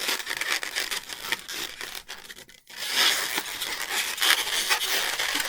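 Latex modelling balloons rubbing against each other and the hands as they are twisted, in two stretches split by a brief pause about two and a half seconds in.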